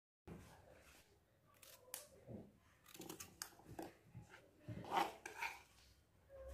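Kitchen prep sounds: irregular cutting, scraping and knocking as ingredients are cut and handled, loudest about five seconds in.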